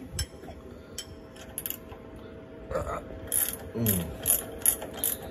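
Sharp metallic clicks and clanks of a workpiece and vise being handled at a CNC mill, coming thicker and louder in the second half, over a faint steady machine hum.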